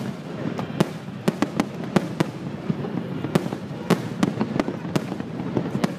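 Aerial fireworks shells bursting in a rapid, irregular barrage of sharp bangs, about two a second, over a steady low rumble.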